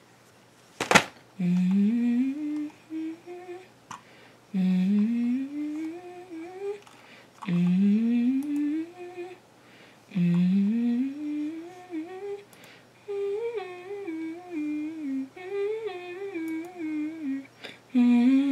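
A woman humming without words: four phrases that each slide upward in pitch over about two seconds, then two wavering phrases near the end. A single sharp click, the loudest sound, comes about a second in.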